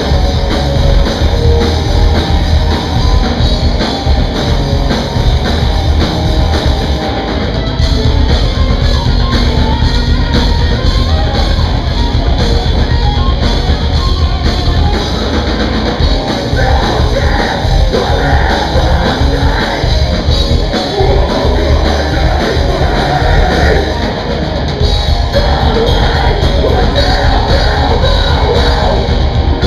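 Live heavy metal band playing loud, with drums, guitars and yelled vocals.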